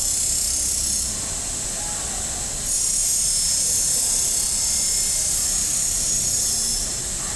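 Knife blade being ground by a robotic grinding machine: a steady high-pitched hiss of abrasive on steel. It drops a little about a second in, grows louder again just before the three-second mark, and eases off near the end.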